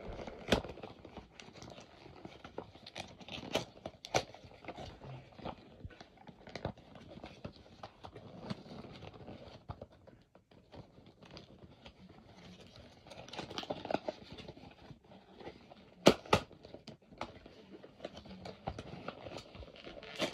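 Toy packaging being opened by hand: crinkling and tearing of cardboard and plastic, with scattered clicks and knocks. The loudest is a pair of sharp knocks in quick succession about sixteen seconds in.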